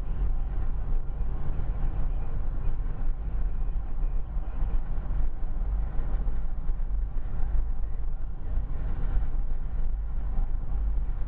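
Steady low rumble of a car driving at speed, heard from inside the cabin: engine and tyre road noise with no break or change.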